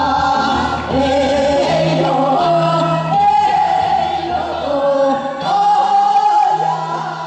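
Two women singing a Korean folk song (minyo) together into microphones over instrumental accompaniment, with long held notes.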